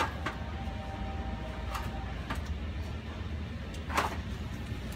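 A few short clicks and knocks from a toddler handling a wire shelf basket of plumbing fittings. The loudest comes near the end, over a steady low hum.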